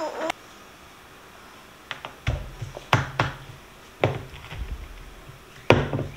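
About six irregular knocks and thumps, starting about two seconds in, the loudest near the end.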